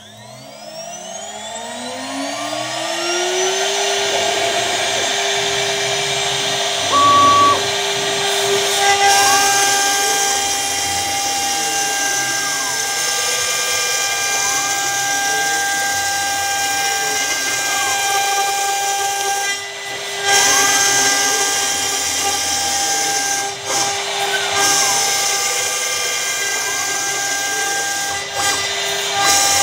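CNC router spindle spinning up with a rising whine over the first few seconds, then running steadily as a 6 mm two-flute end mill cuts the outline of an acrylic (Plexiglas) sheet at 3000 mm/min, 1 mm deep. Over it, a whine repeatedly rises and falls in pitch as the machine moves along the cut.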